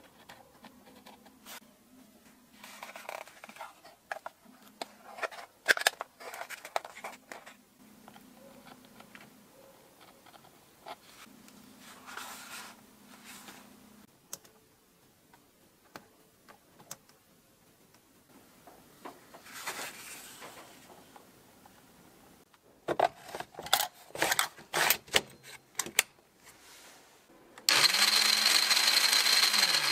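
Light handling sounds, then a run of sharp clicks and knocks, and near the end the restored Makita 4190D cordless circular saw's motor switches on and runs at speed with a high whine, dipping briefly in speed once before picking up again.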